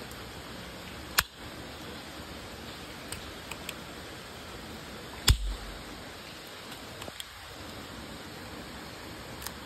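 Toy match gun firing twice in the rain: a sharp snap about a second in and a louder one about five seconds in, followed by a brief low thump, with a few faint ticks between. Steady hiss of falling rain underneath.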